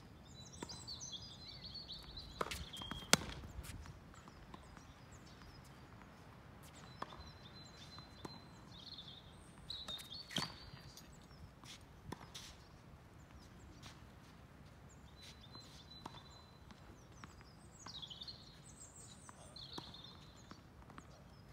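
Tennis ball being struck back and forth with rackets during a rally: sharp, irregular pops of racket hits and ball bounces, the loudest about three seconds in. Birds chirp on and off in the background over a low outdoor hum.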